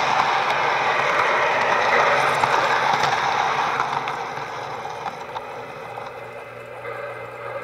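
HO-scale model train running along its track, heard from a car in the train: a steady mechanical whir and clatter of wheels and gearing with faint clicks, dropping somewhat in level after about four seconds.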